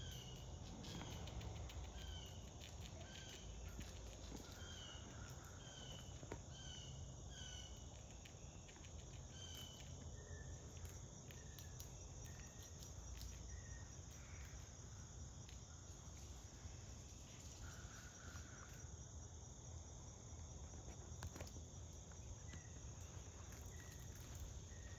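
Quiet outdoor ambience: a steady high-pitched insect trill, with a bird giving short repeated chirps, about two a second for the first ten seconds and sparser after that.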